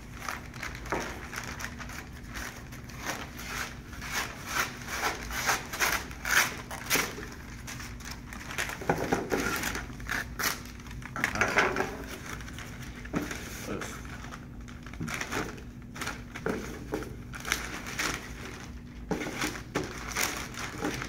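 Wrapping paper rustling and crinkling in irregular crackles as it is cut, folded and crumpled around a gift box.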